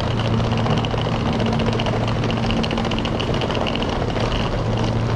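New York City subway E train running, heard from inside the car: a steady rumble with a constant low hum.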